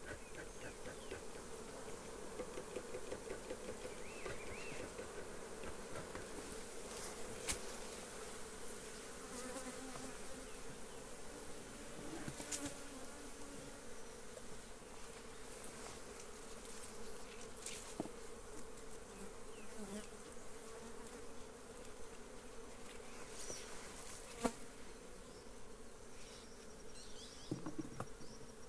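Honey bees buzzing in a steady, even hum around an opened hive being worked. A few sharp clicks stand out now and then.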